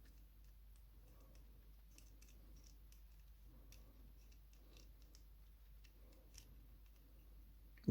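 Faint scattered metallic clicks and ticks of a disc-detainer padlock being unscrewed and taken apart by hand, with a sharper knock right at the end.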